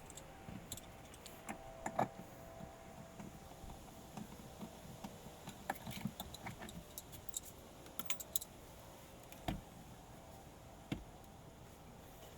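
Scattered light clicks and taps, with a few sharper knocks, from screws and plastic interior trim being handled and worked loose by hand in a car.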